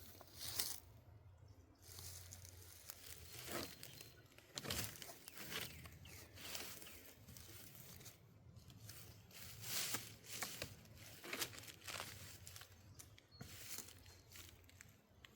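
Irregular rustling and crackling, faint, with no motor running.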